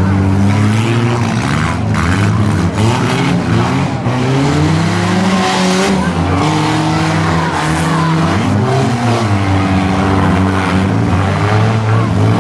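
Several compact four- and six-cylinder car engines revving hard in a demolition derby, their pitches rising and falling over one another, with tires skidding on the dirt.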